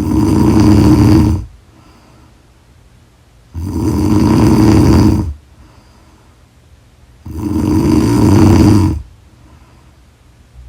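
A woman snoring loudly in her sleep: three long, rasping snores, one about every three and a half to four seconds, with quiet breathing between them.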